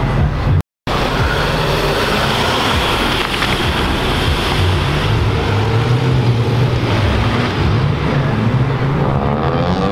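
Car engines and exhausts as cars pull away one after another, a low engine drone with a rev rising near the end, over wind noise on the microphone. The sound drops out briefly near the start.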